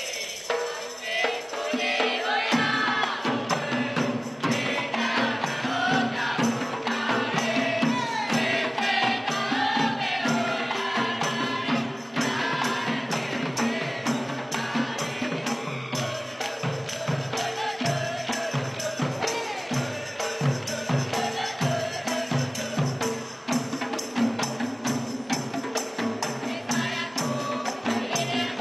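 Kompang ensemble: several hand-beaten Malay frame drums playing a fast interlocking rhythm, with a jingle tambourine shaken along and a group singing over them. The full drumming comes in about two seconds in.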